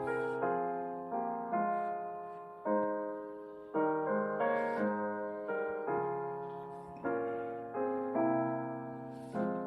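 Slow, gentle solo piano music: single notes and chords struck about once or twice a second, each ringing and fading.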